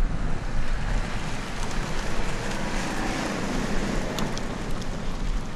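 BMW X3 driving past on a gravel track: tyres crunching over gravel with a few stones ticking, the noise swelling as the car passes about three seconds in and then easing. Wind buffets the microphone throughout.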